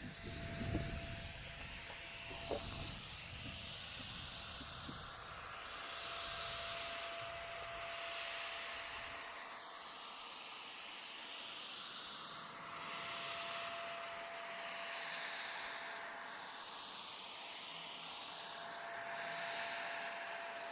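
Total TT3506 electric paint spray gun running and spraying: a steady hiss of air and atomised finish over a thin motor whine. The hiss shifts slowly in tone as the gun is moved. There are a few knocks of handling in the first seconds.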